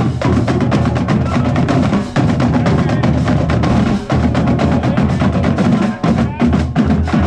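High school marching band playing, driven by rapid, dense drum strokes with clicking rim-like hits over a sustained low bass line.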